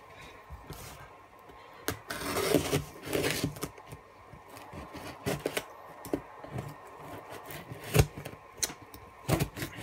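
A knife slitting the packing tape on a cardboard box, with the box handled: a rough scraping, tearing stretch about two to three seconds in, scattered taps and clicks, and one sharp click near the end.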